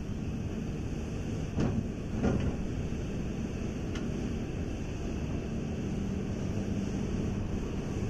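Hitachi ZX350 excavator's diesel engine running steadily under work as the boom lowers the bucket into a sand pile, with two short metallic clanks about one and a half and two seconds in.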